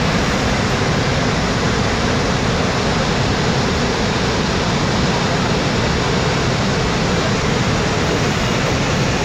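Floodwater gushing through the open crest gates of a large concrete dam's spillway: a loud, steady rushing of falling and churning water.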